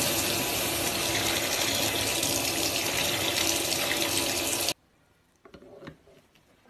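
Cold tap water running steadily onto a heated brass ball valve to quench it, cut off suddenly about five seconds in. A few faint clicks follow.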